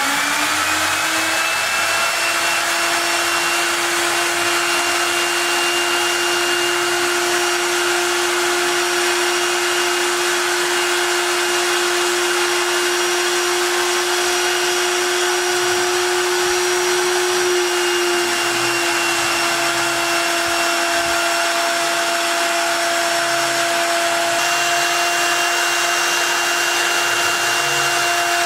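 Small CNC router's trimmer spindle spinning up to speed at the very start, then running at a constant high speed with a steady hum while the machine mills a small speaker box.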